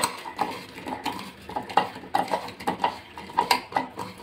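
Pieces of bitter gourd being rubbed and squeezed by hand with salt and turmeric in a bowl, the ridged pieces scraping and knocking against the bowl in quick, irregular strokes, about two or three a second.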